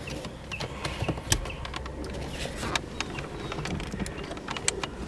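Shift-knob trim panel on a 2010 Mustang GT's centre console being pried and worked loose, giving irregular clicks and creaks.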